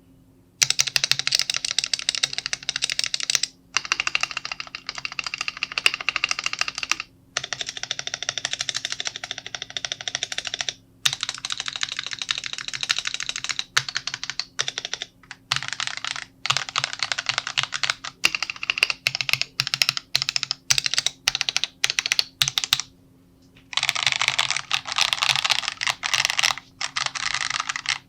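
Fast typing on an Epomaker Mini Cat 64 mechanical keyboard in its stock build, with Radiant Red switches and XDA-profile keycaps: a dense clatter of keystrokes in runs of a few seconds, broken by brief pauses. This is the unmodded sound, which the builder calls "quite meh".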